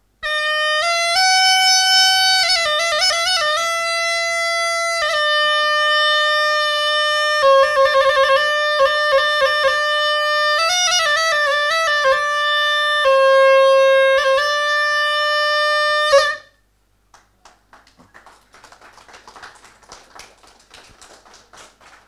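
Pepa, a reed hornpipe with a horn bell, playing loud, reedy held notes with quick trilled ornaments between them. It stops sharply about sixteen seconds in, and only faint scattered noise follows.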